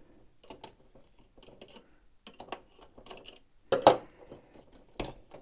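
Hard plastic parts of a Jinbao Gravity Builder Devastator figure clicking and tapping as hands work a panel loose, with a louder knock just before four seconds in and another about five seconds in.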